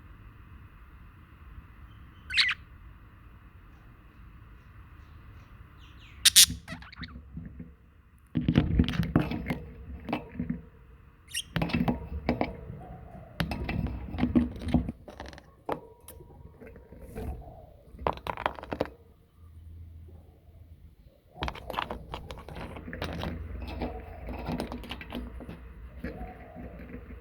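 Pet budgerigars chirping and chattering in irregular bursts, with a sharp chirp about two seconds in, mixed with knocks and rustles of the birds moving about.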